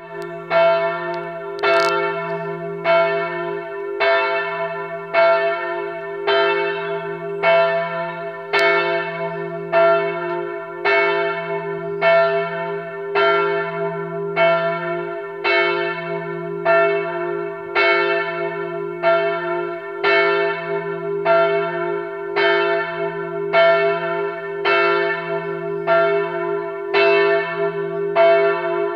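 Church bells ringing, with a strike a little more than once a second over a steady low hum of the bells' ringing tones.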